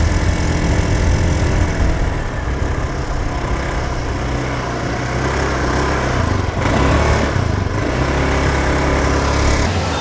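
Small motor scooter engine running under throttle, climbing a steep path, its note steady with a few small shifts in pitch. It cuts off abruptly just before the end.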